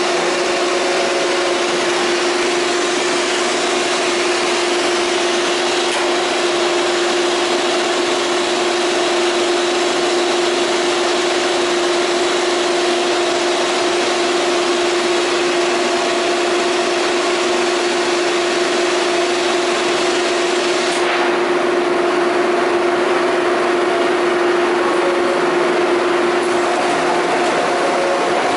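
Euromac CNC turret punch press and its load/unload system running: a steady machine hum under a broad hiss. About three-quarters through, the highest hiss falls away, and near the end the hum stops.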